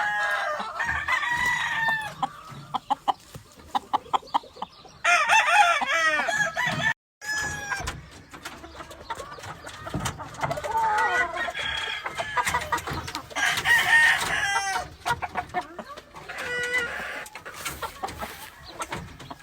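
Gamefowl roosters crowing, one crow after another, with clucking between the crows; the sound drops out abruptly for a moment about seven seconds in.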